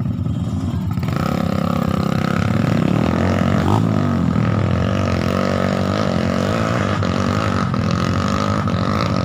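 Small motorcycle engine revving hard under load on a steep dirt hill climb, its pitch swinging up and down. It gets louder about a second in.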